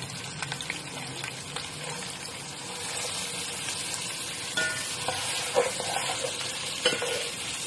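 Sliced red onions sizzling in hot oil in a steel pot, being fried toward golden brown while stirred with a metal spoon. A few sharp clinks of the spoon against the pot come in the second half.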